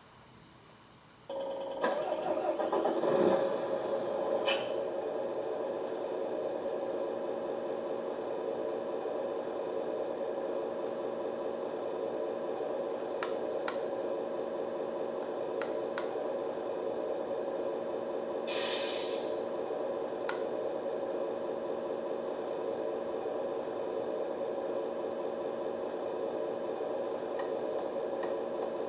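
G.T Power sound module in a Tamiya Scania R620 RC truck playing a simulated truck engine through its small speaker: an engine-start effect about a second in, settling into a steady idle. About two-thirds of the way in a short hiss sounds over the idle.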